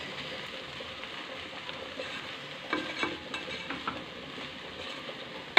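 A spatula stirring bathua greens, potatoes and fried lentil bori in a kadai, scraping the pan over a steady low sizzle, with a few light scrapes and taps about three seconds in.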